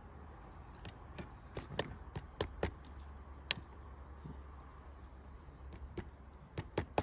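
Hammer tapping a small nail, about 2 cm long, into a wooden beehive frame. The light, separate taps come irregularly, with a quicker run of strikes near the end.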